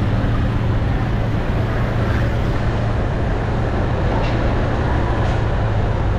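Street traffic noise: a steady low engine hum under an even haze of road noise.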